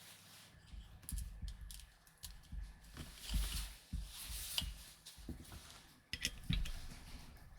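Scattered clicks and knocks of hands handling gear while a compressed-air line and regulator are fitted to an HPA airsoft rifle.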